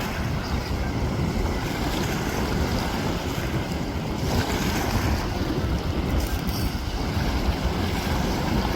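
Seashore waves washing in, with wind buffeting the microphone in a steady low rumble.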